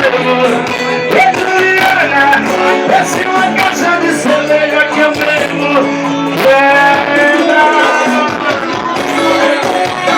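A band playing live, with guitar and a voice singing the melody.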